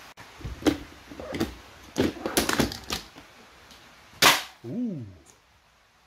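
Sharp knocks and clattering hits of a dishwasher being knocked apart for scrap: scattered strikes, a quick run of them about two to three seconds in, and the loudest crack a little past four seconds.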